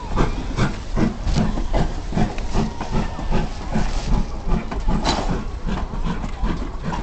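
Steam train running, with steam hissing over a steady beat of about two or three pulses a second. A sharper knock comes about five seconds in.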